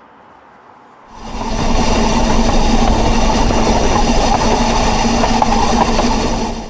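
Narrow-gauge steam train running close by, a loud rush of running noise with a steady hum underneath. It starts suddenly about a second in and cuts off abruptly at the end.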